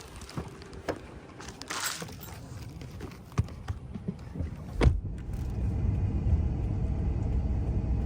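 Scattered clicks and knocks, then a loud thump about five seconds in, after which a car runs with a steady low rumble.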